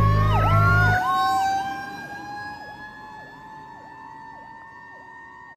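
Fire ladder truck's warning devices as it passes: an air horn blast that cuts off about a second in, over an electronic siren swooping down and back up about twice a second, and a second siren tone slowly rising in pitch. Everything fades as the truck moves away.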